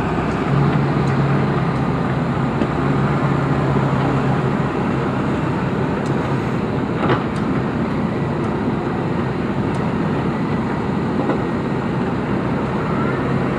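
Diesel engine of heavy construction machinery running steadily at constant speed, with one short knock about seven seconds in.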